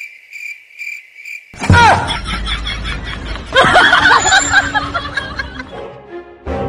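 A cricket chirping in a steady pulsing trill for about a second and a half. It is cut off by a sudden loud outburst of voices snickering and chuckling, with a second burst of laughter about halfway through.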